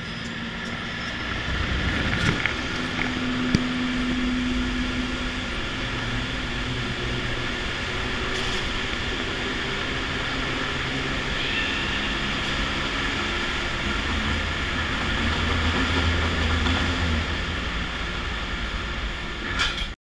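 Car engine and tyre noise, steady, while driving through a road tunnel.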